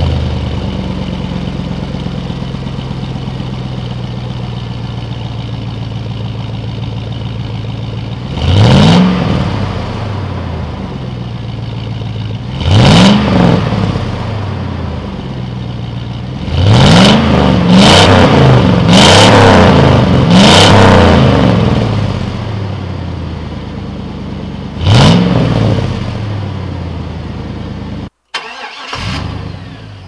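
5.3L LM7 V8 of a 1999 Chevy Silverado running through a Cherry Bomb Glasspack, a straight-through fiberglass-packed muffler, heard at the tailpipe. It settles from a loud start-up flare into a steady idle, then is revved seven times, each rev rising and falling: single revs about 9 and 13 seconds in, four quick ones in a row around the middle, and one more near the end. Just before the end the sound cuts off abruptly.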